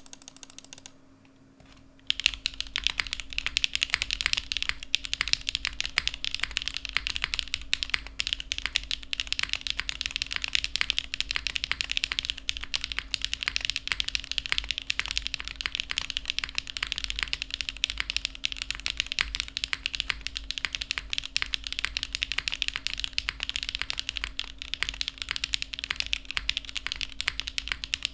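Geonworks F2-60 custom 60% mechanical keyboard with lubed Gateron RAW switches on an aluminium plate and GMK keycaps, typed on fast and continuously, starting about two seconds in. A faint steady hum sits underneath.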